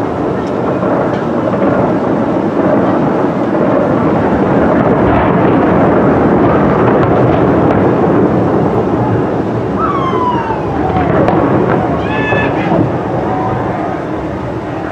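Fireworks display: a loud, continuous rumble of bursts blending into one another, with a falling whistle about ten seconds in.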